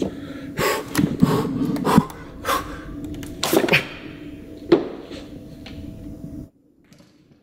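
Gym weights and equipment clanking, with a string of sharp knocks and a few short breaths over a steady low hum. It cuts off abruptly near the end.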